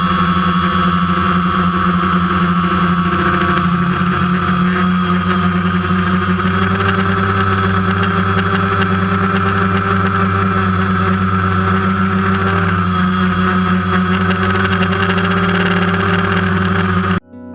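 Helicopter in flight: a steady engine drone with a high whine held throughout, cutting off suddenly near the end.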